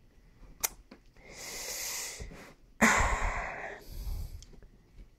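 A person breathing close to the microphone: a slow, soft breath in about a second in, then a louder breath out that starts suddenly a little under three seconds in and fades over about a second.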